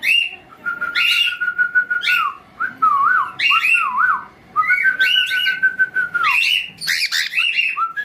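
Cockatiel giving repeated short, harsh chirping calls, alternating with a man whistling to it: long held whistled notes and a wavering up-and-down whistle, the second long note ending in a falling glide.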